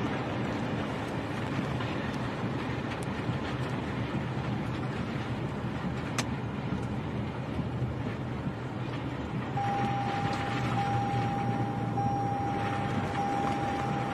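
Loud, steady rushing of tornado winds and driving rain, with a low rumble underneath. From about ten seconds in, a steady electronic tone sounds over it, broken by short gaps.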